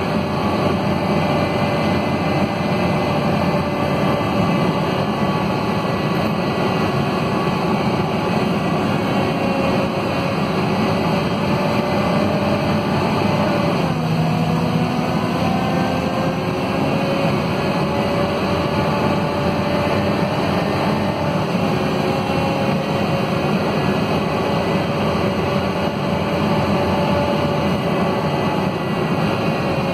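Scania DC9 five-cylinder 9-litre diesel in a city bus, heard from inside the rear of the cabin as it drives. The engine note rises and falls with the automatic gearbox, dips about halfway through, then climbs steadily again.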